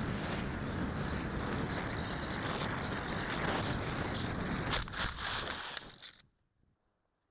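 Steady rushing noise of wind and motor picked up by a camera aboard an FPV model plane in flight, with a faint high whine. A few sharp knocks about five seconds in as it comes down into the grass, and the noise stops about six seconds in.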